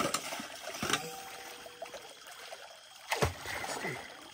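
Creek water trickling and running over rocks, with two brief knocks: one about a second in and a louder one about three seconds in.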